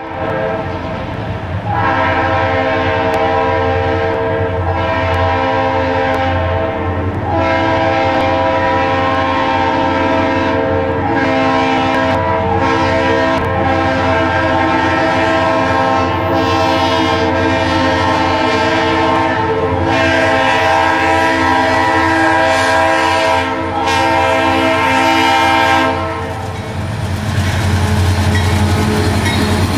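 Union Pacific diesel freight locomotive sounding its multi-chime horn as the train approaches: a string of long blasts with a few short breaks, several tones together. The horn stops a few seconds before the end, leaving the diesel engines' rumble as the lead locomotives pass close by.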